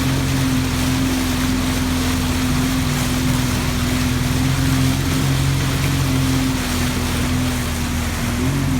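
Motorboat engine running at a steady pitch over an even rushing noise.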